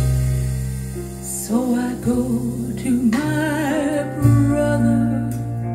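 Recorded female vocal song played back through Pylon Diamond 25 floor-standing loudspeakers in a room: a woman's voice with wavering vibrato comes in about a second and a half in, over steady bass notes and accompaniment.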